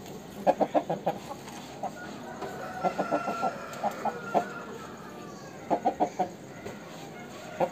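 Aseel rooster clucking in short quick runs of three to five sharp notes, several times over.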